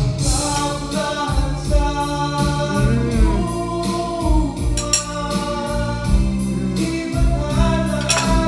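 Background music: a sung song with a steady beat, gospel-style vocals over instruments.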